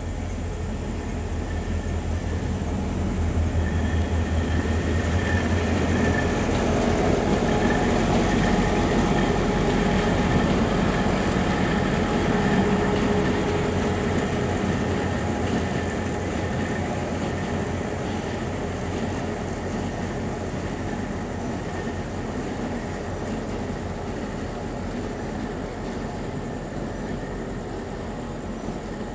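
Diesel locomotive running with a low engine drone as it hauls slowly along the track. It grows louder to a peak about ten seconds in, then slowly fades.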